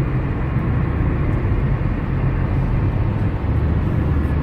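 Steady low rumble of road noise inside a car moving at highway speed.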